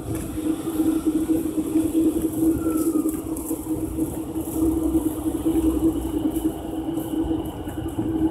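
Street ambience heard from a moving bicycle: a steady low hum over a constant rumble of road and wind noise.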